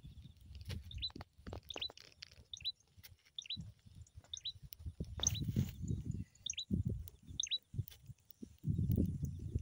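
A small bird chirping: short, high notes that slide downward, repeated about once a second. Under them are intermittent low rumbles and a few light clicks.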